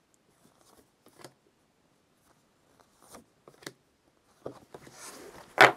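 Printed paper cards and box packaging being handled: scattered faint taps and clicks, a short rustle near the end, then one sharp tap just before it ends.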